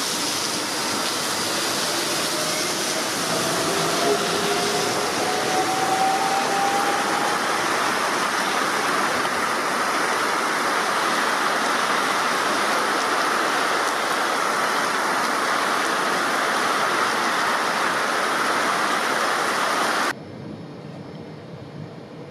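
Heavy rain pouring down on a station platform, with the faint rising whine of an agilis class 440 (Alstom Coradia Continental) electric train accelerating away a few seconds in. Near the end the rain noise cuts off suddenly to quieter outdoor sound.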